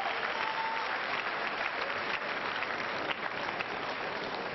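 Large congregation applauding steadily.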